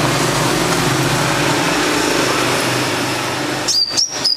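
A steady motor-like noise with a low hum, then near the end a few short, high chirps from a small caged songbird.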